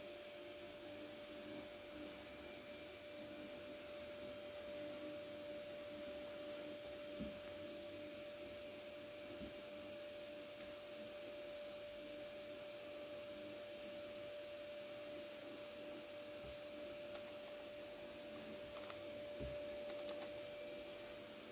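Steady faint electrical hum with one clear high tone over a soft hiss, room tone from an appliance. A few soft thumps, and light clicks and rustles near the end.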